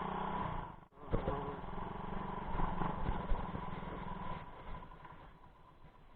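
A small engine running steadily, with a brief break about a second in, fading out near the end.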